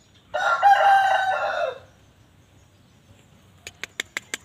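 A rooster crowing once, a loud call about a second and a half long that drops in pitch at its end. Near the end, a quick run of about six sharp clicks.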